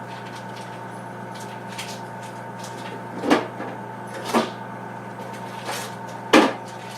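A few sharp knocks and clunks of food packages and containers being moved and set down in an open refrigerator, the loudest near the end, over a steady hum.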